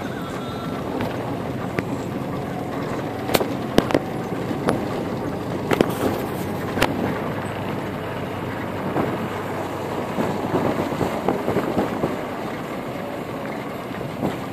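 Car driving slowly along a rough dirt track, heard from inside: a steady rumble of tyres and body, with several sharp knocks and rattles from the bumps, most of them between about three and seven seconds in.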